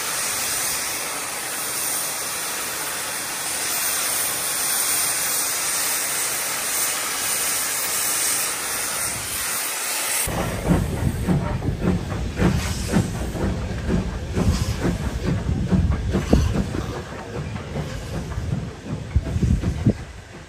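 BR Standard Class 9F steam locomotive standing and letting off steam: a loud, steady hiss. About halfway through the hiss cuts off abruptly, giving way to a low, uneven rumble with irregular thumps.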